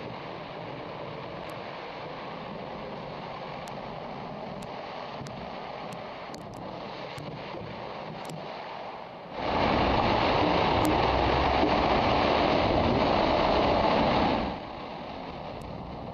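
Steady rush of flood water, with wind on the microphone. About nine seconds in, a much louder, dense rushing noise starts abruptly, holds steady for about five seconds, then stops just as abruptly.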